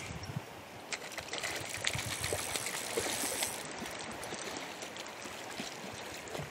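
Shallow river rapids running steadily, with a flurry of small clicks and splashes from about one to three and a half seconds in.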